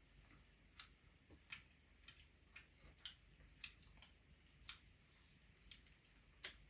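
Near silence with faint, slightly irregular clicks about twice a second: the mouth smacks and clicks of people chewing roast chicken.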